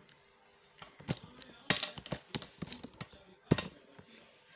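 Plastic pieces of a 3x3 puzzle cube clicking and knocking together as edge pieces are fitted into the partly assembled cube: a series of short sharp clicks, the loudest about three and a half seconds in.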